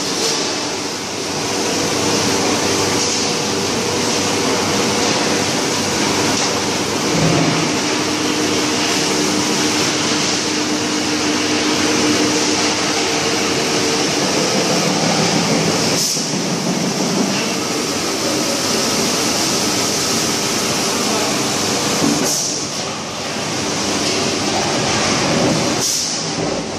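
Steady, loud din of a steel drum factory: machinery and ventilation fans running continuously, with a faint low hum through it.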